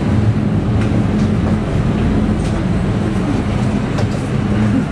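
Steady low mechanical hum of indoor machinery, with a few faint clicks.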